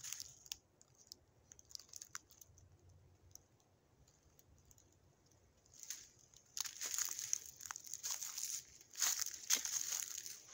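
Footsteps crunching through dry leaf litter and brush. A short crunch at the start, a few seconds of near stillness, then steady steps resume about six seconds in.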